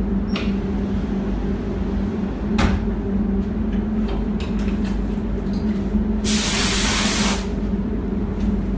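Gravity-feed paint spray gun hissing as it sprays pink car paint onto a Volkswagen Beetle: two brief puffs, then one loud burst of about a second near the end. A steady low hum runs underneath.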